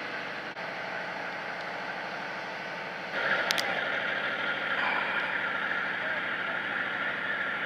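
Diesel freight locomotive's engine running steadily while the locomotive burns, with a fireball rising from its roof. The running sound gets louder about three seconds in.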